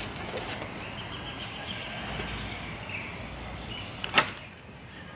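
Outdoor park ambience: a steady low rumble of distant traffic with faint bird calls, and one sharp click about four seconds in.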